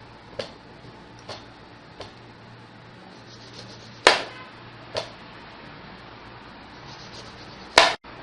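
Sharp clicks and knocks of hands working while peeling maltas (sweet oranges), six in all, the loudest about four seconds in and another near the end.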